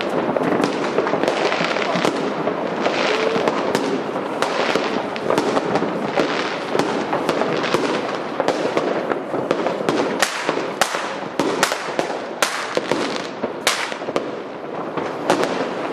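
New Year fireworks display: a dense, continuous stream of bangs and crackling, with a run of sharper separate bangs from about ten seconds in.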